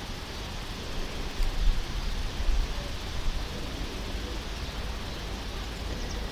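Steady outdoor background noise, an even hiss with a low rumble that swells a few times between about one and three seconds in.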